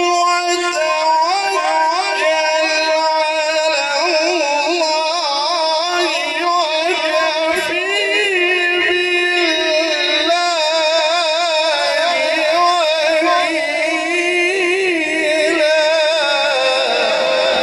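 A man's solo voice chanting in long, ornamented melodic phrases with held, wavering notes, amplified through a handheld microphone. It is Islamic devotional chant, of the kind that follows an opening Bismillah.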